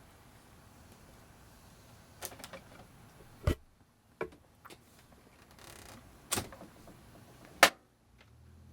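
Handling noises from a laptop being unplugged: about six separate clicks and knocks, the loudest near the end, with a brief sliding rustle in between.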